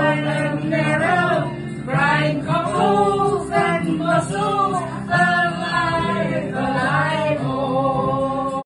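Several women's and men's voices singing a melody together, with a low note held steady beneath. The singing cuts off abruptly near the end.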